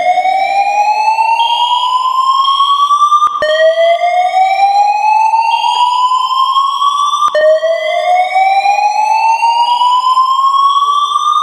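Building voice-evacuation fire alarm sounding a slow-whoop evacuation tone. A loud tone rises steadily in pitch over about four seconds, then drops back with a click and rises again, three times in all.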